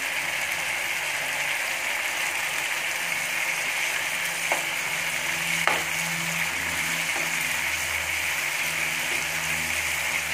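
Thick chicken curry gravy sizzling in a nonstick pan while a steel ladle stirs it, with two light clinks of the ladle against the pan near the middle.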